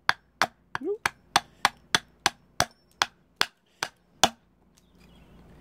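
Small Robin Wood carving axe chopping into a cherry-wood spoon blank held on a chopping block: about a dozen quick, sharp strikes, roughly three a second, stopping about four seconds in.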